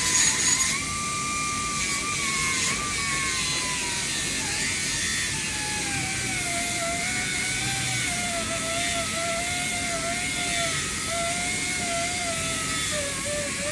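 Grinder grinding down a MIG weld to take out porosity, its steady whine wavering and sinking slowly in pitch as it bears into the metal.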